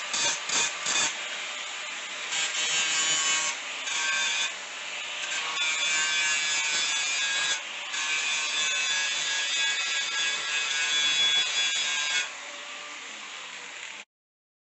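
Abrasive work on the rusty steel of a 1958 Ford Ranchero tailgate: a few quick rhythmic scraping strokes, then steady rasping with high ringing tones from the sheet metal, stopping briefly several times before going quieter and cutting off near the end.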